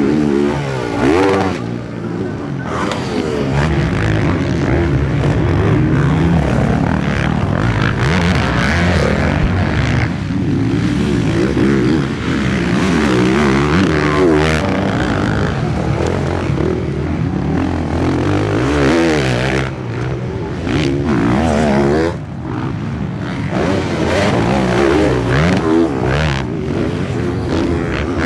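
Several motocross bikes racing on a dirt track, their engines revving up and down over and over as the riders accelerate, back off and accelerate again.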